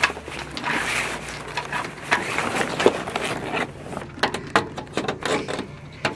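Sail cloth and lines rustling and scraping as they are handled at the mizzen mast. About four seconds in this gives way to a run of light clicks and knocks.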